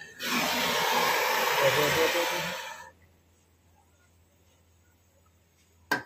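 Gas torch flame on a portable canister burning with a steady hiss while heating an air-conditioner pipe joint. It cuts off about three seconds in, and a single sharp click follows near the end.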